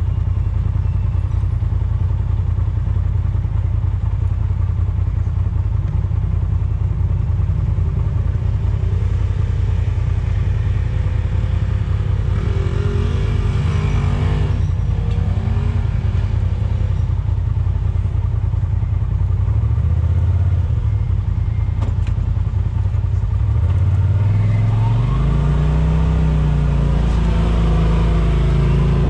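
Off-road vehicle's engine running steadily at low revs, then revving up and down repeatedly in the last third.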